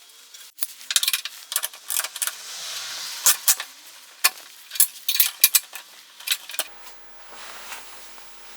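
Irregular sharp clicks, knocks and clinks of small hard parts being handled and fitted together, with a short hiss-like rustle about three seconds in.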